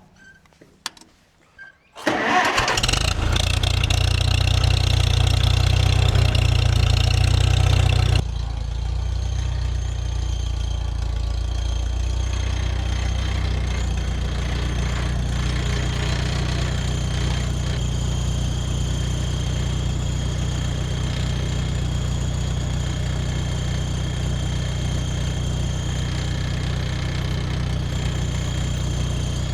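Tractor engine starting about two seconds in and running fast for several seconds. It then drops to a steady idle about eight seconds in, warming up to drive the sawmill's hydraulics.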